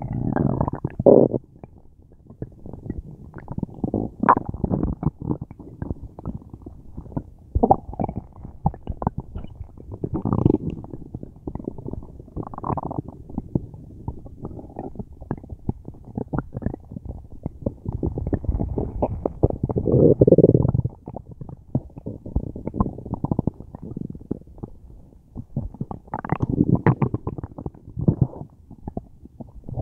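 A person's stomach rumbling and gurgling in irregular bursts of low rumbles and bubbly gurgles, with the loudest, longest rumble about twenty seconds in.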